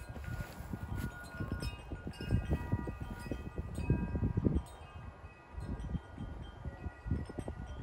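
Wind chimes ringing: several clear tones struck at irregular moments and left to ring on, over an uneven low rumble of wind on the microphone.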